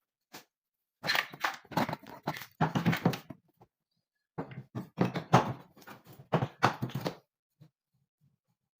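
Rapid clicks and knocks in two bursts, from about a second to three and a half seconds in and again from about four and a half to seven seconds, typical of hands handling the parts of an air conditioner's indoor unit during a repair.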